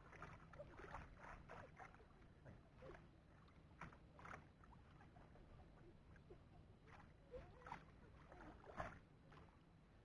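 Faint, irregular splashing and sloshing of water with scattered small knocks, the loudest splash near the end.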